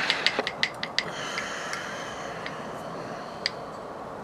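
Light metallic clicks and clinks from a 2JZ piston and connecting rod assembly being handled: a quick run of clicks in the first second, a faint high ringing after them, and one more click later.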